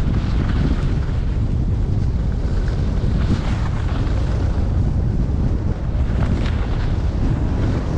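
Wind buffeting the microphone of a skier moving downhill, a steady low rumble, over the hiss and scrape of skis sliding across packed, chopped-up snow.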